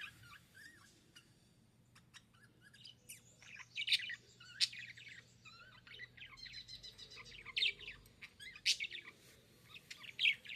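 Budgerigars chirping and warbling in quick, irregular bursts of short high notes, with a few sharp clicks among them.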